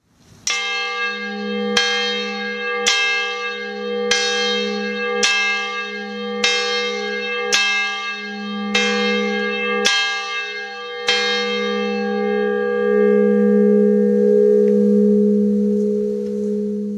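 Church bell being rung: ten strokes about a second apart, each ringing into the next. After the last stroke the bell's low hum rings on for several seconds.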